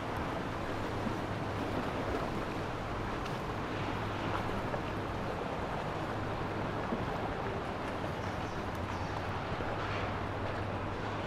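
Boat engines running under way: a steady low drone under an even rush of water and wind.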